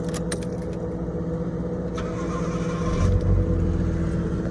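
Nissan Skyline R32's RB20DET turbocharged straight-six being started. A few clicks and a steady hum come first, then a low engine rumble comes in about three seconds in and keeps running.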